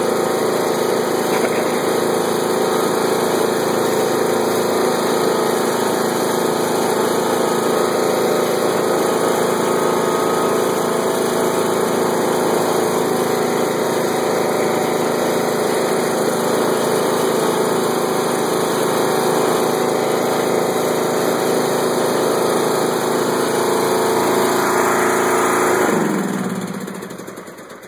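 Craftsman LT1500 lawn tractor engine running steadily as the tractor drives along. Near the end it winds down and stops.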